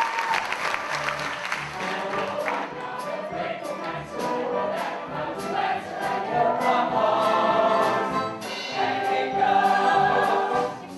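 Full stage-musical cast singing together in chorus with the accompanying band, while the audience claps and applauds.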